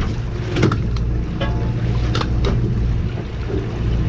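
Steady low hum of a sportfishing boat's engine, with a few sharp clicks and knocks from a yellowfin tuna being handled on the deck.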